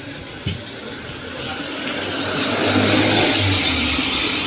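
A car driving past close by on a wet road: tyre hiss on wet tarmac swells to a peak about three seconds in, with the low hum of its engine underneath.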